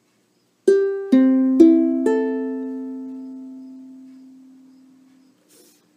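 Ukulele with a cocobolo rosewood soundboard: four single notes plucked one after another, about G, C, E and A (the open strings), then left to ring and fade out over about three seconds.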